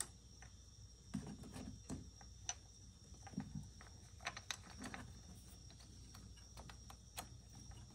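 Scattered light clicks and taps from tools and small engine parts being handled during camshaft position sensor work. Most come between about one and five seconds in, with one more near the end.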